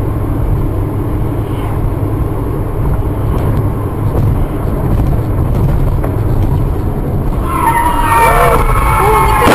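Steady low road and engine rumble heard from inside a moving car. About seven and a half seconds in, a louder pitched sound joins it and keeps going to the end.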